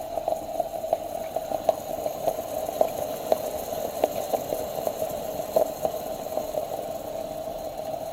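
Espresso machine running as it brews: a steady hum with irregular crackling ticks.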